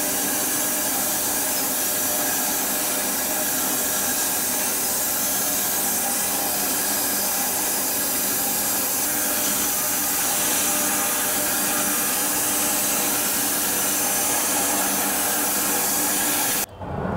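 Homemade bandsaw mill sawing through an elm log: a steady high hiss of the blade in the wood over an even hum from the drive, with no change in pitch or level.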